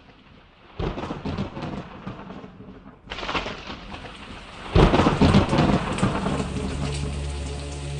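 Thunderstorm: three claps of thunder rumbling about a second, three seconds and nearly five seconds in, the last the loudest, over steady falling rain.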